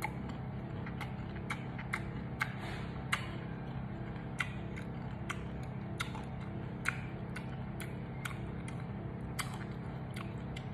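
Close-up chewing of crisp, iced green mango slices: irregular crunches, about one or two a second, over a steady low hum.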